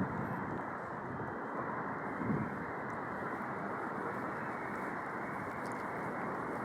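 Steady outdoor city street noise: traffic hum with wind on the microphone, and a soft low bump about two seconds in.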